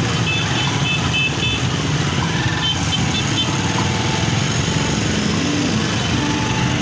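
Steady engine and road noise of motorcycles and cars moving slowly together in a motorcade. A run of short, high beeps sounds near the start and again about three seconds in.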